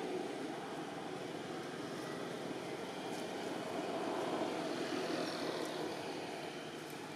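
Steady low rumble of background noise, swelling slightly about four seconds in and easing off near the end.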